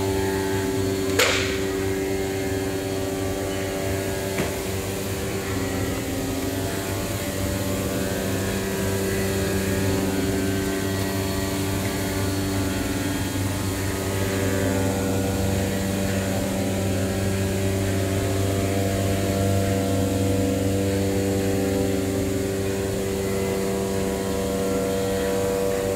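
CNC flatbed knife cutting machine running with a steady humming drone, with one sharp click about a second in.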